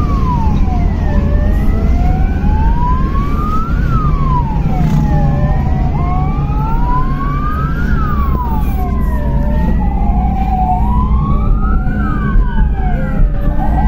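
Ambulance sirens wailing, two tones rising and falling slowly out of step with each other, over the steady rumble of engine and road noise inside the vehicle. Near the end the siren switches to a quick yelp.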